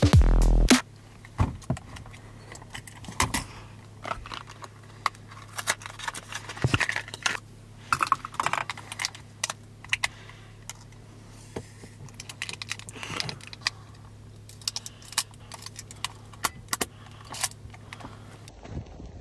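Irregular light clicks and rattles over a steady low hum. A loud falling sweep ends within the first second.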